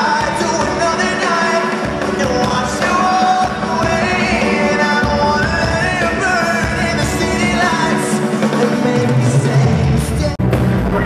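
Pop-rock band playing live in an arena, a male lead vocalist singing over the band, heard from the crowd. The sound drops out for a moment about ten seconds in.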